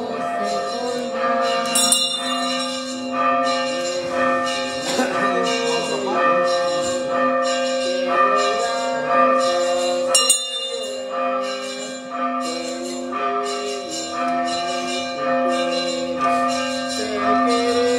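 Church bells ringing in a steady, quick rhythm of a little under two strokes a second, their tones humming on between strokes.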